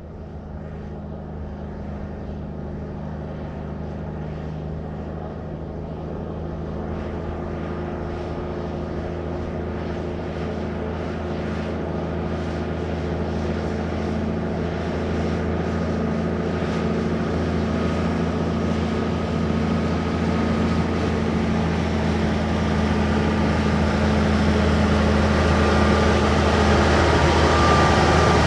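1954 big rig truck's engine approaching on a slow drive-by, a steady low engine note growing steadily louder and fuller as it nears.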